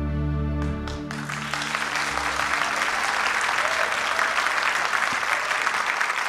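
The final held chord of a live song dies away about a second in, and a studio audience breaks into steady applause.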